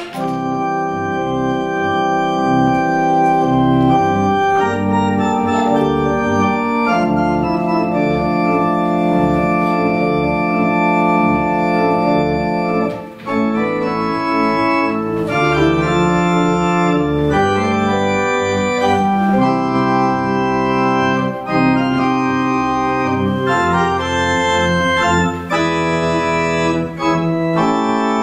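Organ playing held chords over a moving bass line, the chords changing every second or so, with a short break between phrases about 13 seconds in.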